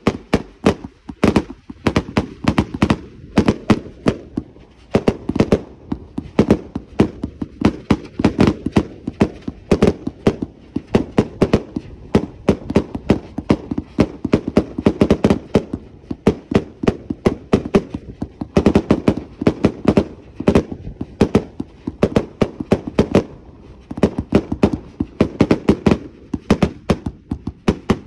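Multi-shot fireworks cake firing a rapid, unbroken string of shots: launch thumps and aerial bursts as sharp bangs, several a second.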